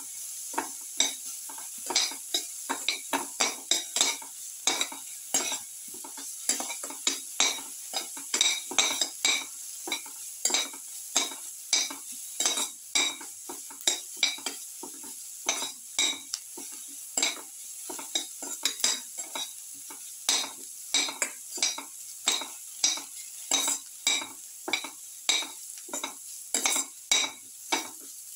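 Sliced onions sizzling in hot ghee in a pan while a slotted spatula stirs them, scraping the pan bottom in a steady run of strokes, roughly two a second.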